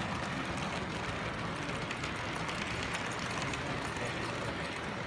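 Model freight train running past on its track, a steady rolling noise with light, quick ticking of wheels over the rails, over the constant murmur of a busy room.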